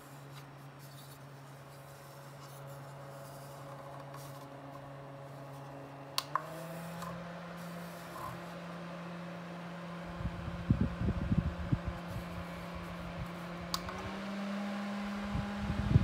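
Small three-speed USB desk fan running with a steady motor hum. The hum steps up in pitch twice, about six and fourteen seconds in, each time just after a sharp click of the speed button. Irregular low rumbling joins in during the second half.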